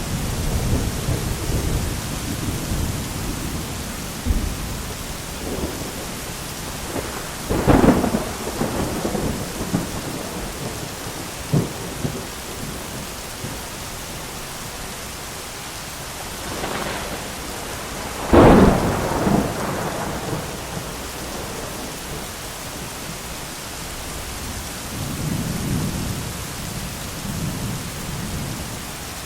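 Thunderstorm: steady heavy rain with rolling thunder. There are sharp thunderclaps about 8 and 18 seconds in, the second the loudest, with smaller cracks between and a low rumble near the end.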